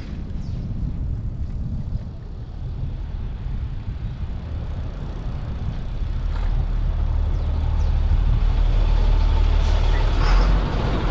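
Street-traffic noise and wind rumble heard from a helmet camera on a moving bicycle. The low rumble grows louder about halfway through, with a hiss near the end.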